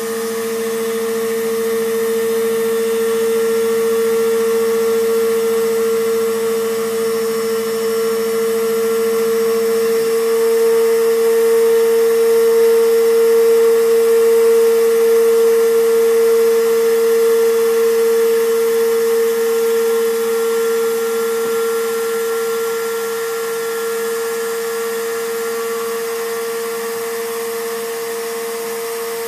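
CNC router spindle running at high speed with a steady high-pitched whine. A lower hum underneath stops about a third of the way through.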